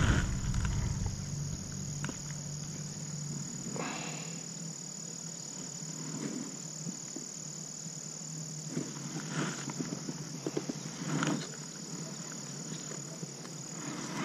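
Insects chirring in one steady high tone, with a few soft knocks and rustles of handling a fish and phone in a plastic kayak.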